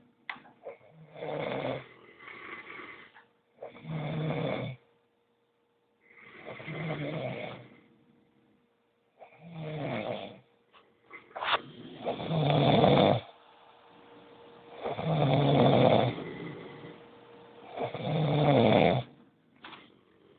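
A sleeping person snoring deeply: about eight rough snores, each roughly a second long and two to three seconds apart, growing louder in the second half.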